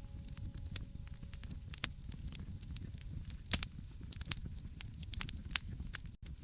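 Wood fire crackling in a fireplace: irregular sharp pops over a low, steady rumble, one pop louder than the rest about halfway through. The sound cuts out for a moment just before the end.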